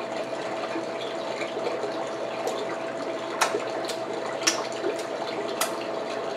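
Eating sounds in a pause between words: a handful of sharp clicks and smacks, roughly a second apart, over a steady hiss and a faint steady hum.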